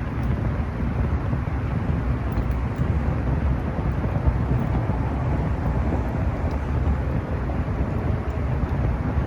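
Campfire burning: a steady low rushing with a few faint crackles.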